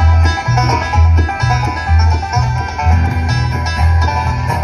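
Live acoustic string band playing an instrumental introduction: strummed and picked acoustic guitars over a bass line on a steady beat, about two bass notes a second.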